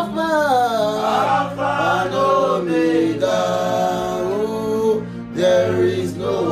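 A man singing a gospel worship chorus in long, held, sliding notes over a soft, steady instrumental backing.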